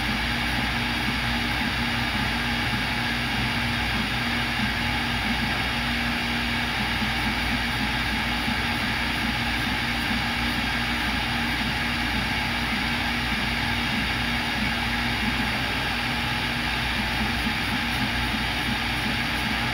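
CNC router spindle running steadily while drilling holes in a copper-clad circuit board, a constant mechanical hum and hiss with a low tone that drops out and returns every second or so as the machine moves between holes.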